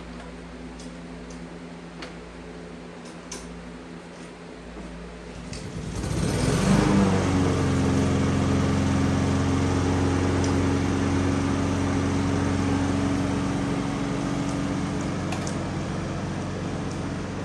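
Faint clicks over a low hum, then about six seconds in a motor or engine starts up, rising quickly in pitch, and runs steadily at an even pitch.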